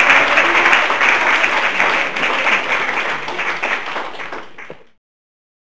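A congregation applauding, the clapping fading away and cutting off to silence about five seconds in.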